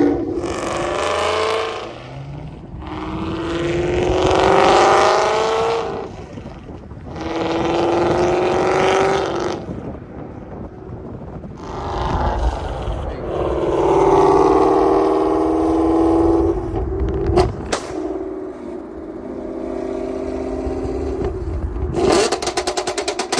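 Ford Mustang GT's 5.0 V8 with long-tube headers and a Corsa Xtreme cat-back, straight-piped, accelerating hard in several pulls, its exhaust note rising in pitch through each with short drops between. A few sharp exhaust pops come late, and a rapid string of crackles near the end.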